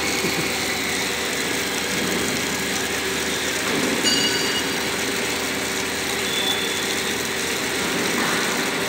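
Steady machinery hum and noise of a railway wagon workshop, with faint steady tones in it and a brief high chirp about four seconds in.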